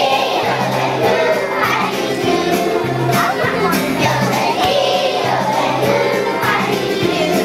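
A group of children singing together with a musical accompaniment that has a steady bass line.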